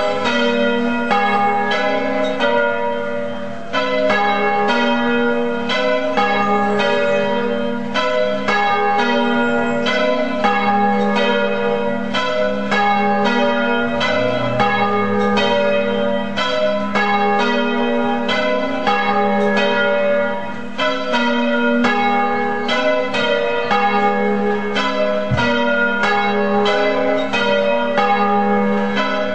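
Church bells pealing, several bells struck in quick, overlapping succession with their tones ringing on, a strike every fraction of a second.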